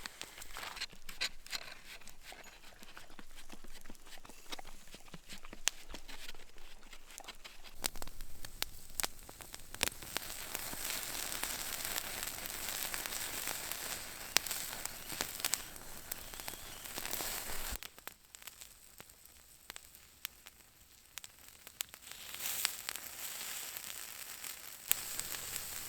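Campfire crackling with moose sausages and fish sizzling over it: irregular sharp pops and clicks over a steady sizzle that drops away for a few seconds past the middle and returns.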